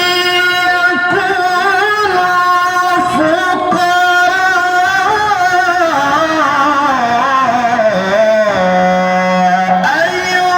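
A male reciter chanting a Qur'an verse (tilawah) in long, ornamented melismatic phrases, one unbroken voice, ending in a long low held note near the end. His voice is melodious but partly hoarse from a cough and cold.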